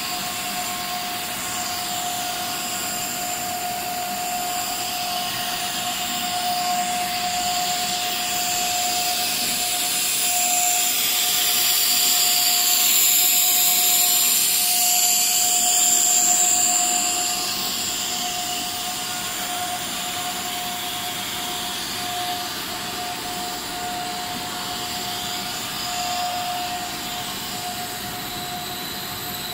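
PP/PPR pipe extrusion line running: a steady whir of drive motors and pumps with a constant whine and a high hiss. The hiss grows louder in the middle and then settles back.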